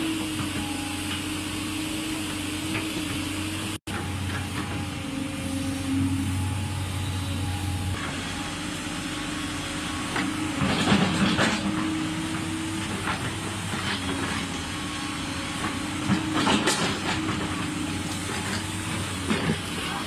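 JCB 205 excavator's diesel engine running steadily, with louder hissing, clattering bursts about halfway through and again near the end. The sound cuts out for an instant about four seconds in.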